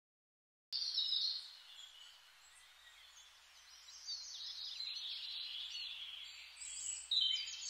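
Birdsong: many quick, high chirps and twitters that cut in abruptly about a second in.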